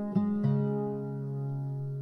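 Background music on acoustic guitar: two plucked notes in the first half second, then held notes ringing on.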